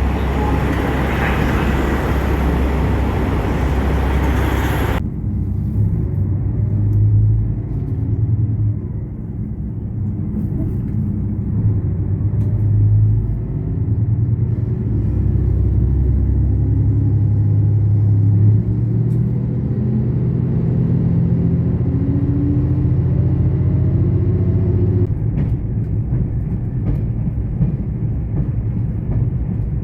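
Low, steady rumble of a vehicle under way, its engine note slowly rising in pitch for a stretch in the middle as it picks up speed. The sound changes abruptly about five seconds in, as at an edit.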